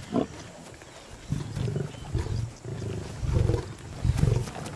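Lions growling in short, low, repeated bursts as they crowd and feed on a fresh buffalo kill, beginning about a second in.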